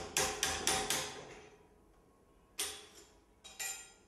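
Sharp, ringing metallic clinks of steel tool parts knocked together: a quick run of about five at about four a second, then three more, spaced apart, in the second half.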